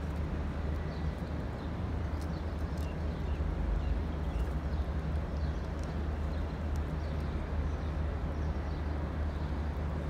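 Steady low outdoor rumble, with light scattered clicks of a white-eared bulbul's beak pecking food in a plastic tray and a few faint high chirps.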